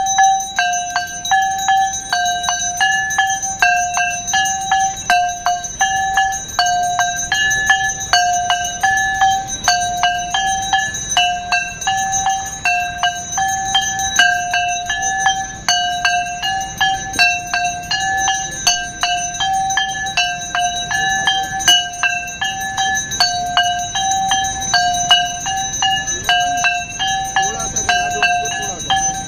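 Aarti music of ringing bells and struck cymbals in a steady, even rhythm, over a ringing tone that swaps between two close notes about every half second.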